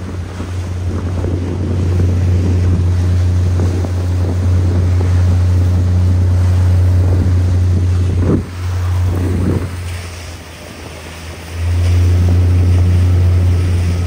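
A fishing boat's motor running at cruising speed as the hull moves through the water, with wind buffeting the microphone. The sound drops briefly about eight seconds in, eases off again for about a second and a half near ten seconds, then comes back up.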